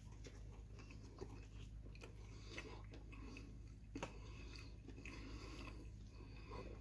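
Faint chewing of a mouthful of burger topped with pico de gallo, with a few small clicks and bites scattered through it.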